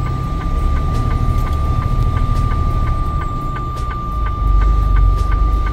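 A Peterbilt semi truck's diesel engine rumbles, heard from inside the cab as the truck creeps through a slushy intersection. The rumble grows louder about four seconds in. A steady high tone and light ticking about three times a second run over it.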